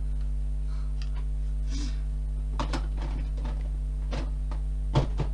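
Makeup products being rummaged through and handled, giving a few light clicks and knocks, the sharpest near the end, over a steady low hum.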